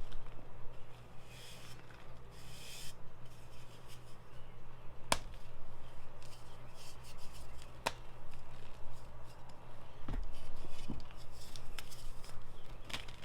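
Ader gym chalk blocks mixed with holi powder being crushed by hand, crumbling and crunching, with two sharp cracks partway through and a couple of dull thuds later, over a low steady hum.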